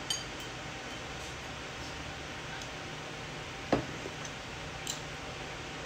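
A few light clicks of tableware and one louder knock about halfway through, over a steady background hum.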